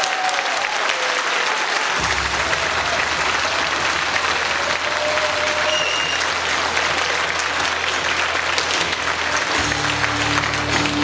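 Audience applause over dance music. Deeper bass notes come into the music about two seconds in, and a fuller chord near the end.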